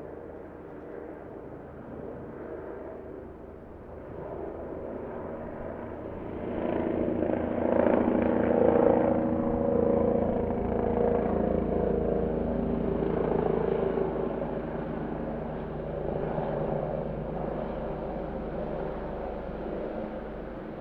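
Helicopter flying by: rotor beat and engine drone swell to their loudest about eight seconds in, then slowly fade.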